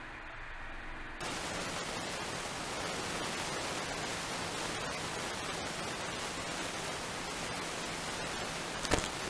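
Steady static-like hiss from the dashcam's audio. It starts abruptly about a second in, replacing a quieter hum, and a brief sharp click comes near the end.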